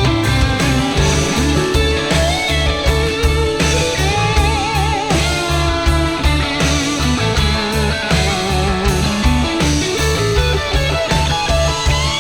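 Rock-style music with an electric guitar playing a wavering lead line over a steady bass beat.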